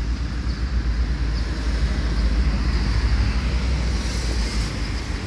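Street ambience: a low rumble of traffic mixed with wind buffeting the microphone, swelling a little in the middle.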